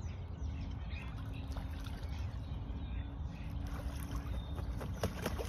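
Low wind rumble on the microphone outdoors, with a faint steady hum underneath and a few light clicks near the end.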